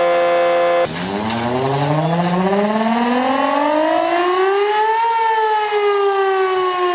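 A steady sound made of several held tones cuts off about a second in. A warning siren then winds up, rising slowly in pitch for about four seconds, and begins to wind back down.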